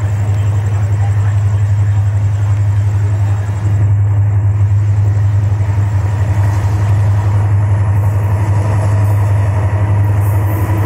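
EMD GT18LA-2 diesel locomotive approaching at speed: a loud, steady low drone of its diesel engine. Near the end, as the locomotive draws level, the sound changes and wheels clattering over rail joints begin.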